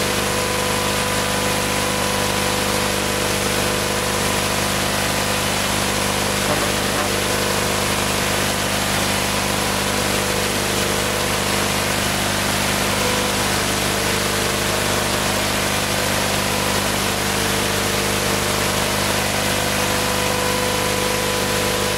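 Steady loud hiss with a constant hum of several fixed tones underneath, unchanging.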